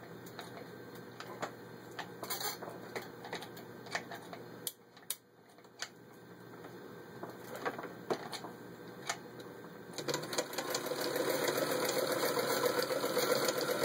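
1941 Singer 221 Featherweight sewing machine with its original, unrebuilt motor straining to stitch through six layers of denim. At first there are irregular clicks over a low hum as it is helped along by hand. From about ten seconds in it runs steadily and louder at full speed, which is still barely any speed: the motor is weak.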